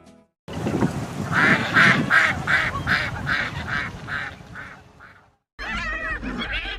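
Ducks quacking in a rapid run of about ten quacks, roughly three a second, fading off toward the end. Near the end a different animal sound starts, with quick rising-and-falling calls.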